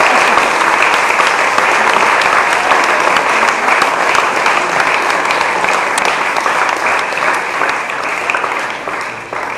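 Congregation applauding: many people clapping at once, thinning and fading out near the end.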